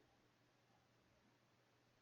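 Near silence: faint microphone hiss with a low steady hum.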